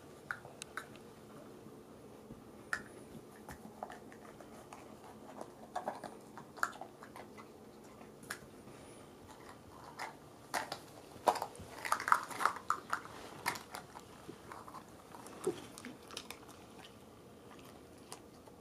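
Small plastic shot cups clicking and tapping as a Cavalier King Charles Spaniel noses and knocks them about on carpet, mixed with the dog chewing treats it finds. The clicks come scattered and light, with a busier, louder run of them about two-thirds of the way through.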